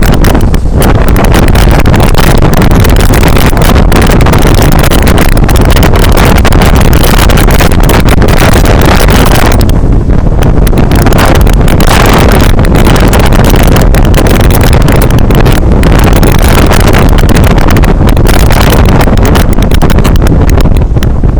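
Loud, steady wind buffeting the microphone on the roof of a moving bus, with the bus's running and road noise underneath.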